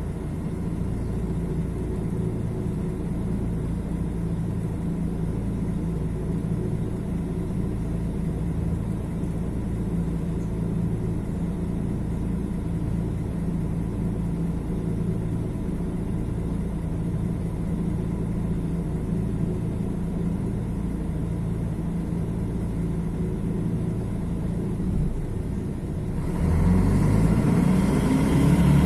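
Mercedes-Benz OM 457 LA inline-six diesel of an O-500MDA articulated bus idling steadily, then picking up near the end as it comes under throttle and accelerates.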